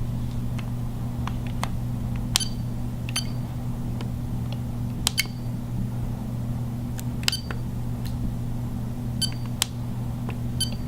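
A steady low electrical hum with a dozen or so short, light clicks scattered through it, several of them with a brief high beep-like ring.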